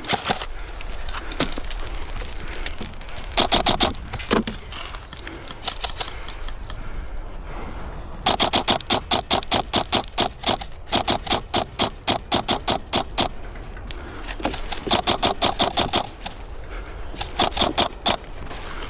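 Upgraded Krytac REC7 airsoft electric rifle firing in full-auto bursts, a fast even rattle of shots. There are several bursts; the longest run a couple of seconds, about halfway through.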